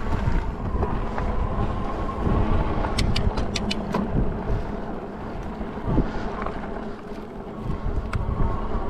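Steady whine of the Senada Drifter folding e-bike's 750 W hub motor running under pedal assist, under wind buffeting the microphone and fat tyres rolling on a dirt trail. A quick run of sharp clicks about three seconds in.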